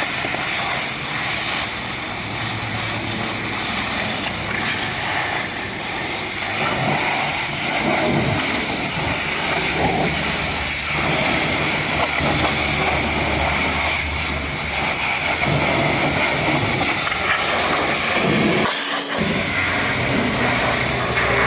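High-pressure washer spraying water at a truck, a loud steady hiss with a low hum underneath.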